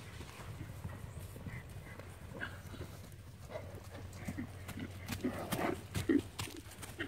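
Horses' hooves beating on grass as the horses canter loose, the knocks growing louder and closer in the second half as one horse comes right up, loudest about six seconds in.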